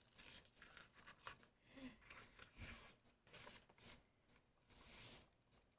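Faint rustling and sliding of glossy photobook pages being turned and handled, several soft rustles with a longer one near the end.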